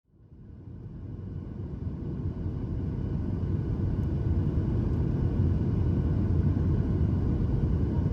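Steady low rumble of an airliner heard from inside the cabin, fading in over the first couple of seconds and then holding level.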